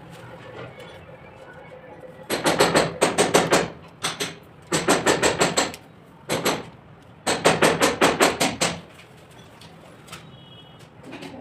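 Rapid sharp knocking or tapping in four runs of about eight strokes a second, each run lasting about a second, with short pauses between.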